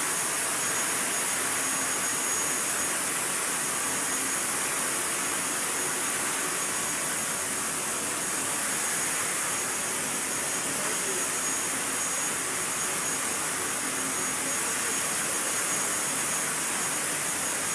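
Steady, unchanging high-pitched hiss of machinery running in the background, with a faint thin whistle tone above it.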